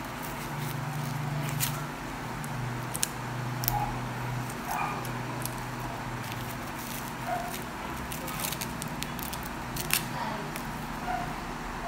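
Paper wrapping crinkling with irregular sharp clicks as the wall clock's hands are unwrapped and handled.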